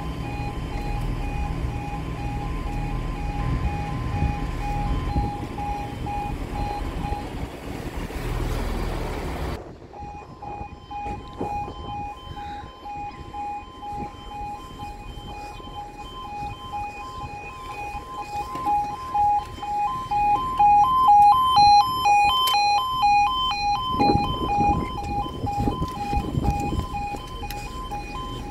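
Level-crossing warning alarm sounding continuously as a two-tone yodel, rapidly alternating between two pitches. For about the first third a heavy low rumble runs underneath and then cuts off abruptly; the alarm gets louder in the second half.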